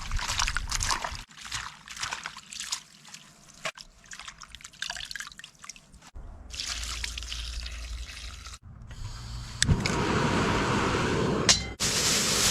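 Water running and trickling in stretches, as if poured or run for washing food, after a couple of seconds of clattering handling noises; it gets louder and steadier about ten seconds in.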